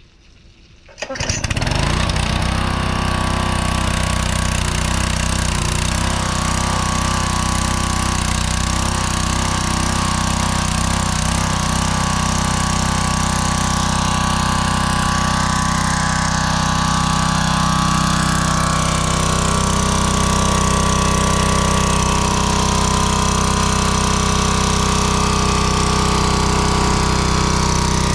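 Small gasoline engine of a Craftsman pressure washer catching about a second in and then running steadily at speed, driving the pump with a garden hose feeding it water.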